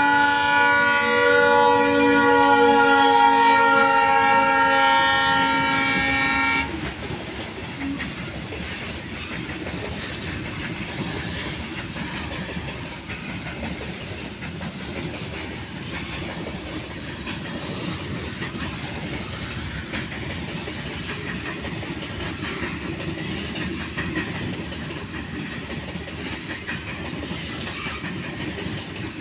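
Locomotive horn sounding one long chord of several tones for about seven seconds as the engine passes, then stopping suddenly. After it, the steady sound of a loaded freight train's hopper wagons rolling past, wheels running on the rails.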